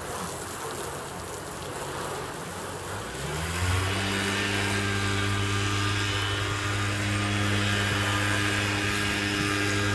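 Garden hose spraying water onto a car's hood. About three seconds in, a steady low mechanical hum starts, rising briefly in pitch and then holding steady as the loudest sound.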